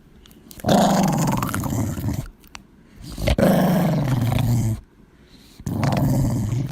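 A dog growling: three long, drawn-out growls with short pauses between them, each sliding lower in pitch.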